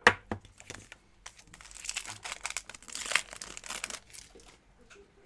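Foil wrapper of a Donruss Optic football card pack being torn open and crinkled. A sharp click comes right at the start, then crinkling from about a second in until about four seconds, trailing off into a few faint ticks.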